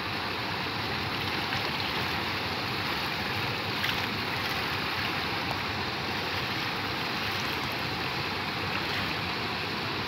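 Steady rush of water pouring over a low concrete weir and churning in the shallow water below.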